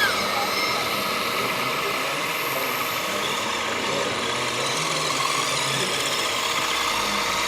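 Radio-controlled model construction machinery running steadily: a continuous mechanical whir with several steady whining tones, like electric motors and a hydraulic pump.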